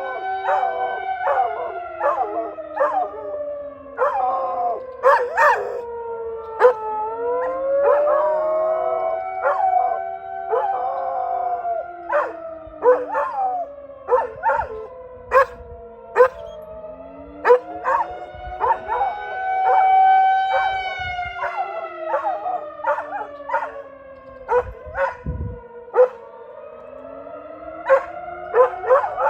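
Outdoor tornado warning siren wailing, its pitch rising and falling in slow sweeps, while a dog howls along with it and barks many times in short sharp barks.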